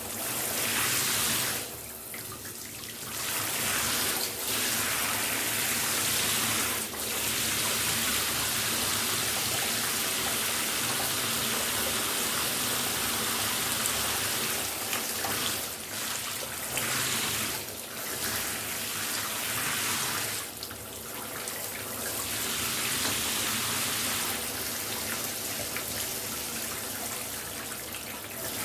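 A shower running, its spray hissing steadily onto a surface. The hiss dips briefly several times, as if the stream is being interrupted.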